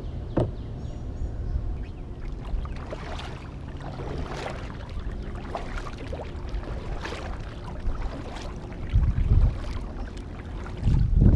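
Double-bladed kayak paddle dipping and swishing through floodwater, a stroke every second or two, over a steady low rumble of wind on the microphone that gusts louder near the end.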